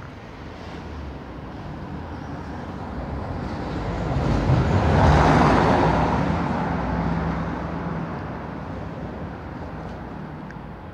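A road vehicle drives past, its engine and tyre noise swelling to a peak about halfway through and then fading away.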